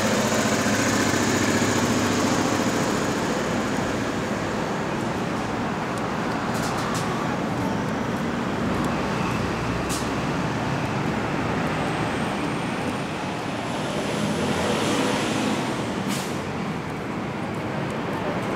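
City street traffic: passing vehicles give a steady wash of engine and tyre noise, with a few sharp clicks and a thin, high whine that rises slightly and then drops away about two-thirds of the way through.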